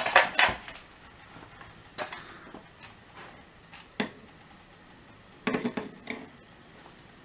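Sheet-aluminium recessed-light can housing and its attached metal junction box being handled and moved on a tabletop: thin sheet metal clattering and knocking. There is a burst of clatter at the start, single knocks about two and four seconds in, and another short burst of clatter near the end.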